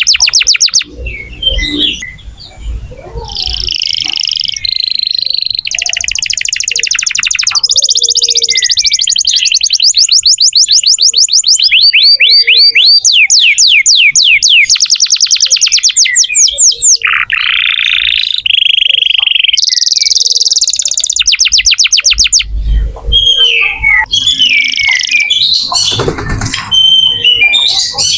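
Domestic canary singing a long, loud song: fast trills and rapidly repeated chirping phrases, switching to a new phrase every few seconds, with a few short pauses toward the end.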